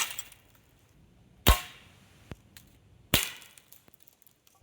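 BB gun firing steel BBs: three sharp shots about a second and a half apart, each with a short ringing tail.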